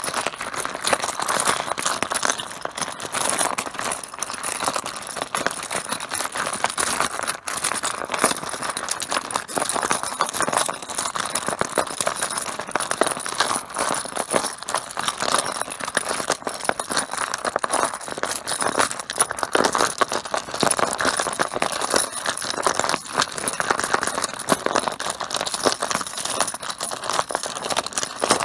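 Mahjong tiles clattering and clicking against one another in a dense, unbroken stream of sharp knocks, as when a pile of tiles is stirred and shuffled on a table.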